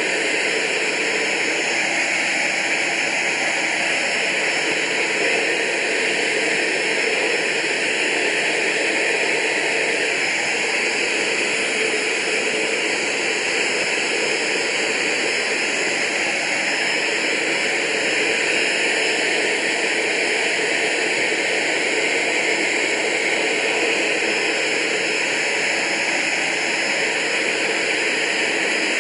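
Cockpit noise of a Soko G2 Galeb jet trainer in flight: its Rolls-Royce Viper turbojet and the airflow over the canopy as a steady hiss that holds one level throughout.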